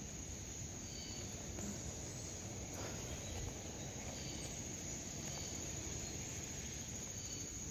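Insects trilling in one steady, unbroken high-pitched drone, over a faint low rumble of outdoor background noise.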